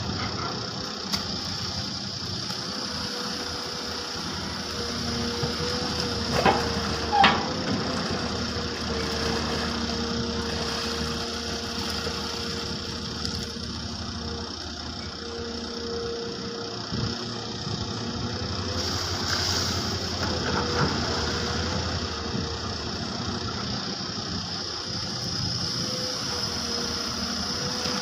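XCMG XE215 long-reach excavator's diesel engine running steadily as the machine digs, with a steady humming tone over the rumble. A couple of sharp knocks come about six and seven seconds in, and a brief swell of louder noise about two-thirds of the way through.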